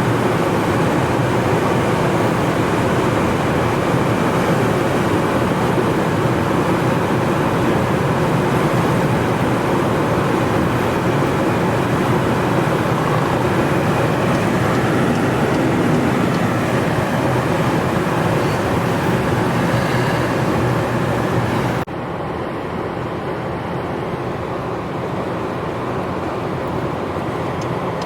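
Steady road and engine noise inside a moving car's cabin. About three-quarters of the way through it drops suddenly to a quieter, duller hum.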